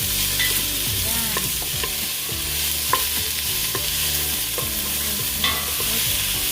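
Onions and green onions sizzling as they sauté in hot oil in a pan, with a few clicks and scrapes of a utensil stirring them against the pan.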